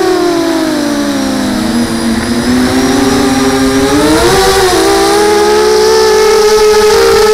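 Electric motors and propellers of an FPV racing quadcopter, picked up by its onboard camera, whining with the throttle. The pitch falls over the first two seconds as the throttle comes off, climbs again about four seconds in, and then holds steady.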